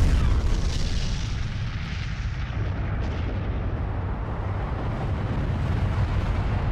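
Explosion sound effect: a blast that starts just before and carries on as a long, steady, deep rumble.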